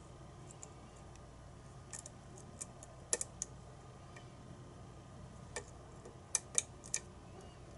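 Light, irregular metallic clicks of a challenge lock being picked, the pick and tension tool working the pin tumblers, with a cluster of clicks a little past the middle and another near the end, over a faint steady low hum.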